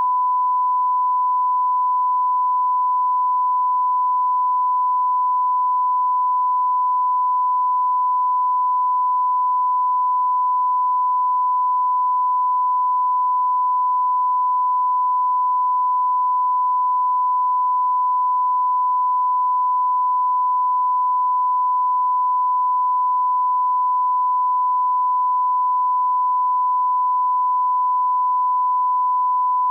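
A censor bleep: one steady 1 kHz tone held without a break, masking swearing.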